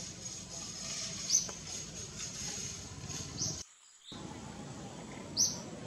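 Forest ambience: a short, high, falling chirp repeats three times about two seconds apart over a thin steady high tone and a soft background hiss. The sound cuts out for about half a second a little past halfway.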